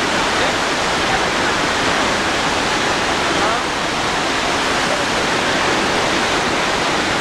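Iguazu Falls' waterfalls pouring into the river gorge: a loud, steady, unbroken rushing of falling water.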